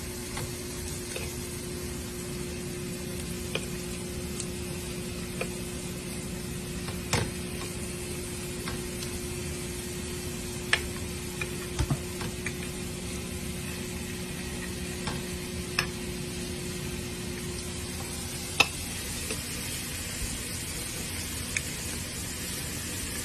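Cut-up chicken breast sizzling in a frying pan, with occasional sharp clicks and scrapes of a utensil turning the pieces over. A steady low hum runs underneath and stops about 18 seconds in.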